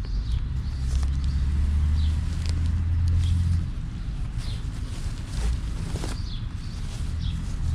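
Birds chirping outdoors: short falling chirps repeated about once a second, over a steady low rumble.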